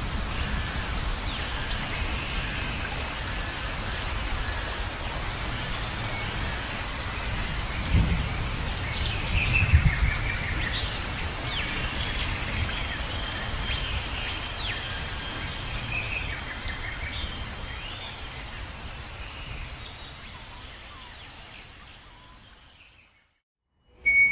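Rainforest ambience of steady rain with low rolls of thunder, loudest about 8 and 10 seconds in, and birds calling with rising and falling chirps. It fades out gradually near the end.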